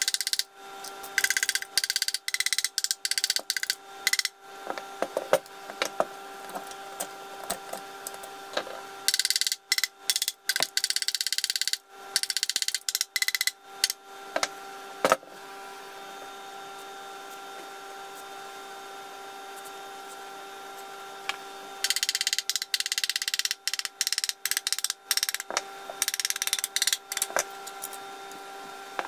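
Plastic housing of a Makita 1902 electric planer being handled and worked apart by hand: choppy crackling, scraping and clicking that comes in three spells, near the start, about ten seconds in, and through most of the last third, over a steady background hum.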